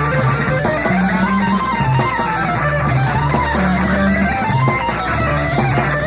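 Live progressive rock band playing: an electric guitar line climbs and falls in repeated runs over a repeating bass figure.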